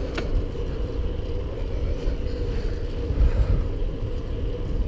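Wind buffeting the microphone of a moving bicycle, a continuous low rumble with a steady hum underneath.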